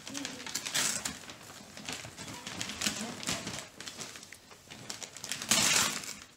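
Gift wrapping paper being torn and crinkled in irregular rustles, with a louder rip about five and a half seconds in.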